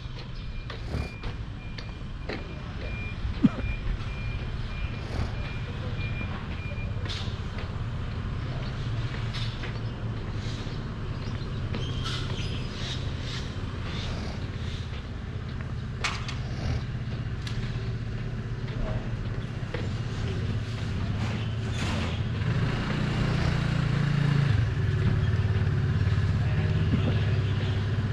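A vehicle engine running with a steady low hum that grows louder in the last few seconds, with scattered clicks and knocks. A high, steady intermittent beeping sounds for the first several seconds.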